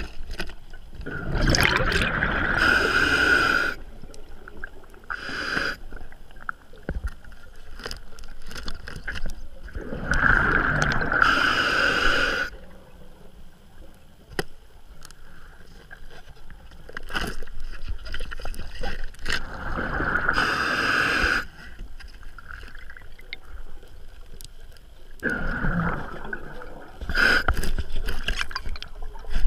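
Scuba diver breathing through a regulator underwater: four long rushes of exhaled bubbles, near the start, about 10 s in, about 20 s in and about 26 s in. Quieter stretches of inhaling lie between them, with scattered faint clicks.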